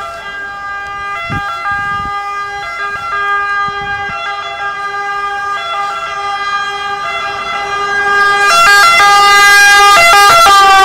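Two-tone siren of an approaching emergency car, switching back and forth between two pitches and growing steadily louder, loudest near the end as the car comes close.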